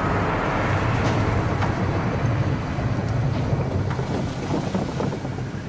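Low, steady rumbling noise with a few faint crackles, slowly fading toward the end.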